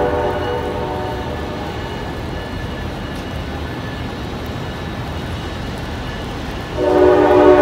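Diesel commuter-rail locomotive's air horn at a grade crossing. A long blast dies away at the start, leaving the locomotive's steady rumble, and the horn sounds loudly again about seven seconds in.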